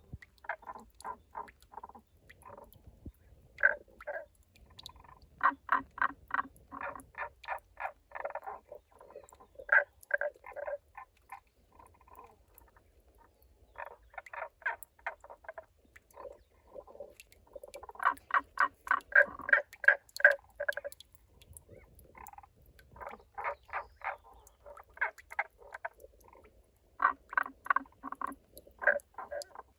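Frogs calling from water in a rock crevice: runs of quick, evenly spaced rolling notes ("koro-koro"), about four or five a second. The runs come in bursts of a second or more, several times over, sometimes two callers overlapping. The uploader's tags point to Tago's brown frog.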